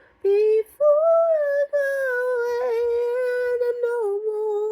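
Unaccompanied mezzo-soprano voice singing the closing phrase of the psalm: a short note, then one long held line that steps down a little near the end.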